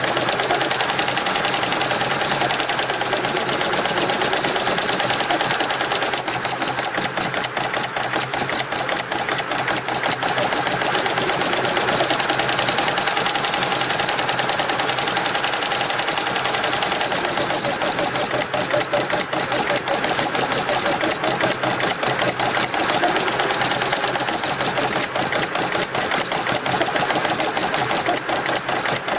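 Richpeace computerised embroidery machine stitching, its needle head running in a fast, even run of strokes.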